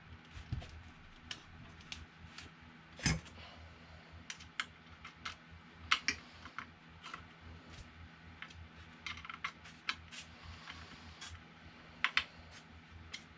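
Irregular clicks and light metallic taps of small tools and metal hardware being handled during hand assembly, with a sharper knock about three seconds in and again near six and twelve seconds, over a faint steady hum.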